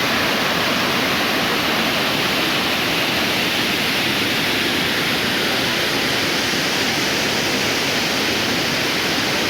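Waterfall rushing: a loud, steady, unbroken noise of falling water.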